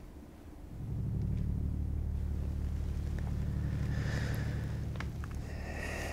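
A low, steady rumbling drone sets in about a second in, with faint higher tones and a few light clicks later on.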